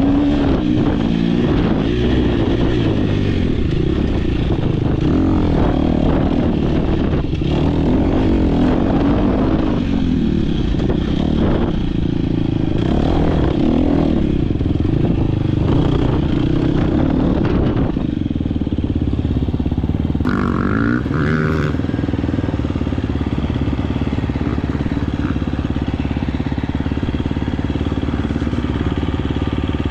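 Off-road dirt bike engine under racing load, heard from the bike. The revs rise and fall repeatedly through gear changes for most of the time, then hold steadier about two-thirds in, with a short higher whine.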